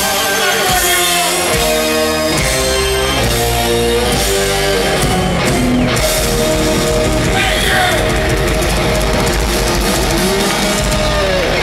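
Heavy metal band playing live, recorded from within the crowd: an electric guitar carries the lead in long held notes over drums and bass, with pitch slides near the end.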